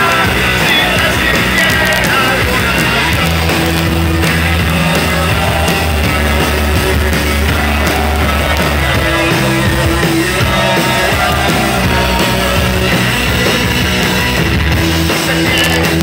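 Live rock band playing: electric guitar, bass guitar and drums, with long held bass notes under a dense, loud mix.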